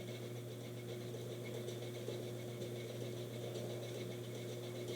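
A steady low hum with a fainter steady tone above it, and faint small clicks and rattles of handling.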